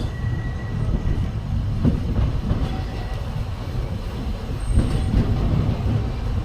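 Walt Disney World Railroad train running along the track, heard from aboard: a steady low rumble of wheels with a few sharp knocks, and a brief high wheel squeal about five seconds in.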